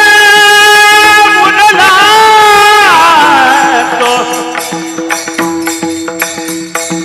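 A male devotional kirtan singer holding one long, high sung note for about three seconds, then sliding down with wavering ornaments and letting it go. A steady drone and rhythmic clicking hand percussion keep playing under and after the voice.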